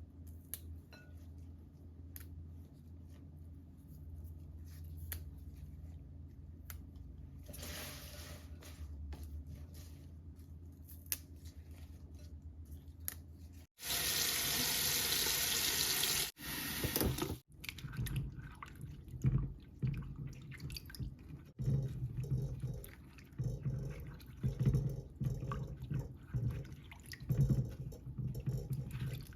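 Kitchen faucet running into a sink: light clicks and handling, then the tap runs hard for about three seconds midway and shuts off. After it comes a run of short, irregular, rhythmic water sounds.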